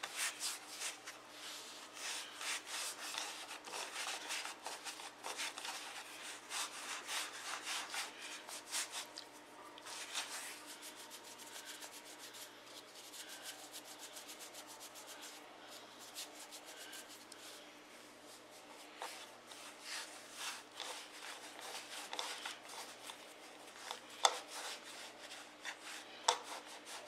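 Hands rolling and rubbing brioche dough into strands on a bamboo wooden cutting board: a continuous soft scuffing, busiest in the first ten seconds and lighter in the middle, with a few sharper taps near the end.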